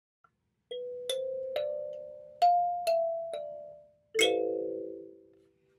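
Gecko kalimba (thumb piano) plucked: six single ringing notes that climb and then fall back, then a few lower notes struck together about four seconds in and left to ring out.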